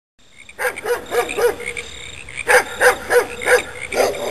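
Dog barking in quick runs of three or four barks, with a short pause between runs.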